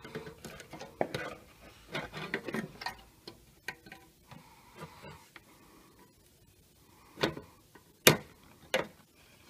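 Irregular light clicks and taps of handling: the camera being repositioned and a soldering iron brought to the circuit board. The clicks are busy at first, sparse in the middle, and a few sharper clicks come near the end.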